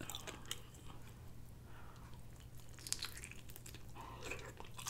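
Close-up chewing and biting of a breaded fried chicken wing, with faint scattered wet mouth clicks and smacks.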